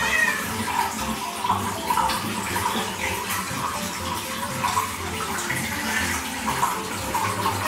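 Tap water running steadily into a bathtub.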